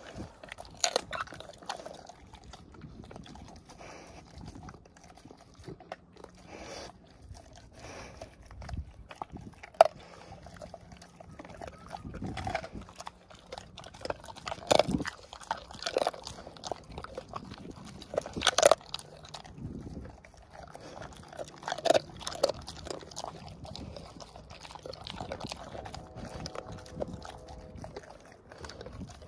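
Rottweiler chewing a chicken foot right at the microphone: irregular crunches and bites, with the sharpest cracks about ten, fifteen, nineteen and twenty-two seconds in.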